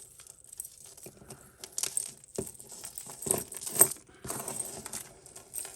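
Tangled costume-jewellery necklaces, metal chains and beads, clicking and jangling irregularly as they are pulled and worked apart by hand, with one louder clink a little before 4 s.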